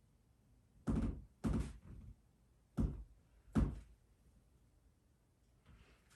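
Four short, muffled thuds spread over a few seconds, with near quiet between them.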